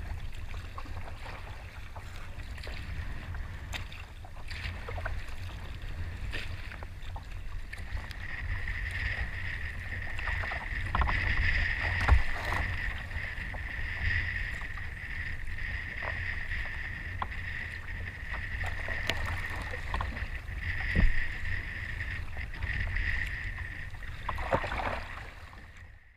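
Wind buffeting the microphone of a deck-mounted camera on a sea kayak crossing choppy water, with splashes of waves and knocks against the hull. A steady high hiss joins about eight seconds in, and the sound fades out near the end.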